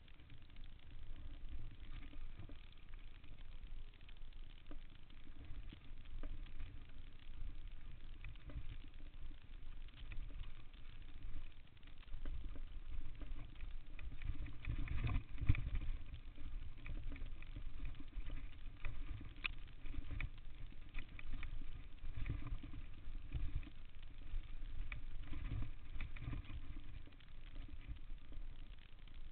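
Downhill mountain bike rolling fast over a dirt trail, heard from a chest-mounted camera: a steady low wind rumble on the microphone with scattered clicks and rattles from the bike, loudest about halfway through.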